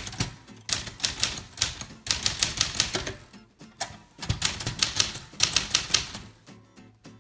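Typewriter being typed on: quick runs of sharp key strikes, several a second, broken by short pauses.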